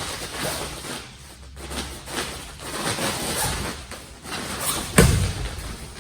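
Shuffling footsteps on a training floor during karate footwork, with a few soft knocks and one sharp thud about five seconds in.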